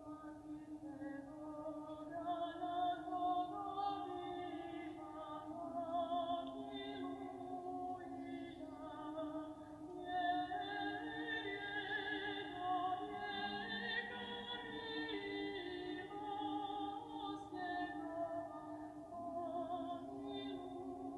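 Background music of choral-style singing, several voices holding long, slightly wavering notes together and moving from chord to chord.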